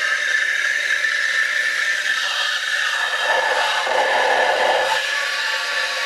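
An espresso machine's steam wand hisses steadily as it injects steam into a steel jug of milk, tea leaves and sugar, boiling the tea. About three seconds in, a lower, louder rush joins for under two seconds.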